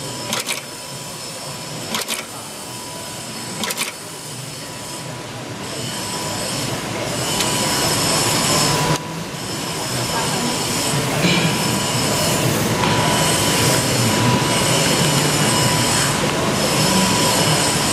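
HC-5XA snap fastening machine setting snaps into a polypropylene sheet. There are three sharp press strikes in the first four seconds. From about five seconds in, the machine runs continuously with a steady whine and several high tones, growing louder.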